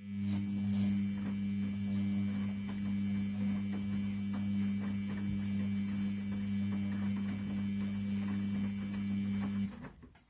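Washing machine's drum motor running with a steady hum and light clicks, starting suddenly and cutting off near the end: the drum turning in the wash cycle.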